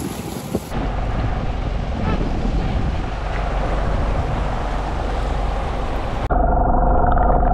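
Wind buffeting the camera microphone over choppy open sea, with water washing around the boat. About six seconds in the sound cuts abruptly to a dull, muffled rumble with a steady mid-pitched hum.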